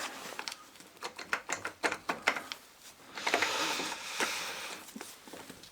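Sharp small clicks and clinks of metal tools and starter-motor parts being handled, with a longer, noisier sound lasting over a second about three seconds in.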